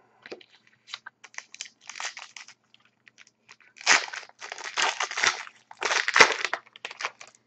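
Plastic wrapper of a trading card pack crinkling and tearing as it is ripped open by hand, in several irregular bursts, the loudest about six seconds in.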